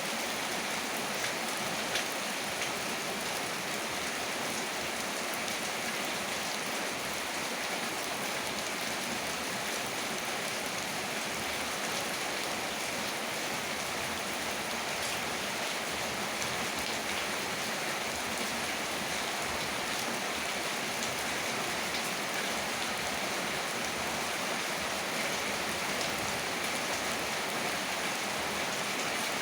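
Heavy rain falling steadily, a constant hiss with scattered individual drops ticking through it.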